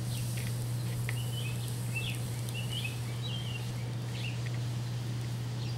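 Small birds chirping on and off over a steady low hum.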